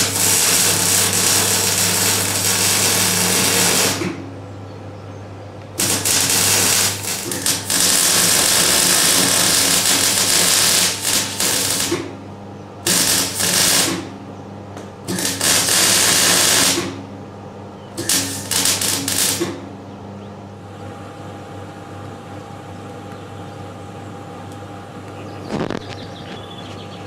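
Electric arc welding on stainless steel, laying weld beads to build up a figure's hair: five runs of loud crackling hiss, the longest about six seconds, with short pauses between, over a steady electric hum.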